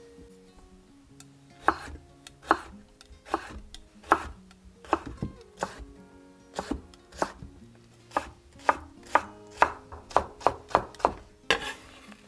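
Kitchen knife chopping food on a cutting board. Single cuts come a little under a second apart at first, then quicken near the end.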